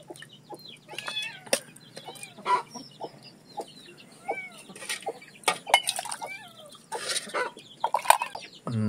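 Chickens clucking and peeping in short calls, with sharp metallic clinks of a steel ladle against steel plates and a steel mug.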